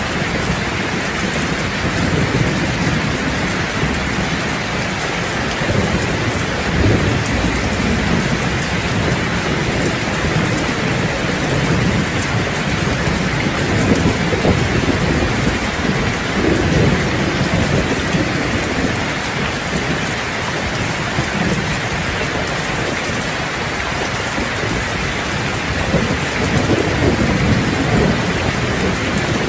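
Steady heavy rain drumming on a roof, with low rolls of thunder swelling up several times.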